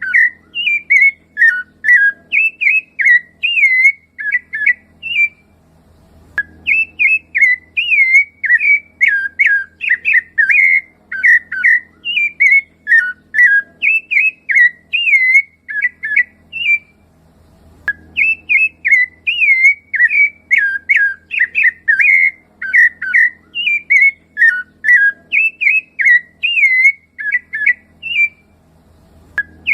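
Rufous-bellied thrush (sabiá-laranjeira) singing: long runs of quick, fluty whistled notes, broken by a few short pauses.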